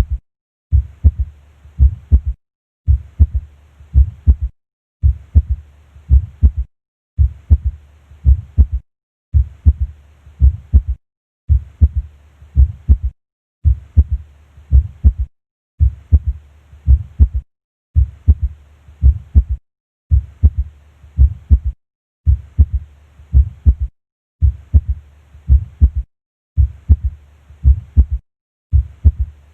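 Heart sounds heard through a stethoscope at the cardiac apex, with a physiological third heart sound (S3): the beats repeat in an even rhythm, each beat a cluster of low thuds, giving the three-part gallop of S1, S2 and an early diastolic S3.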